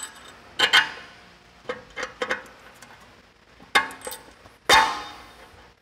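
Metal clinks and taps of steel caliper bolts and washers being handled and set into the bolt holes of a caliper bracket: several separate sharp clicks, the loudest about three-quarters of the way through with a short ring.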